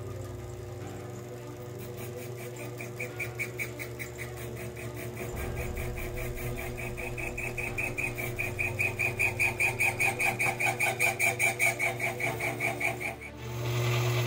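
Sherline benchtop lathe running while a cutoff (parting) tool is fed by hand into the spinning stock to part off a washer. Over the motor's steady hum, a high-pitched cutting tone pulses about three to four times a second and grows louder, then breaks off about a second before the end, leaving the motor hum.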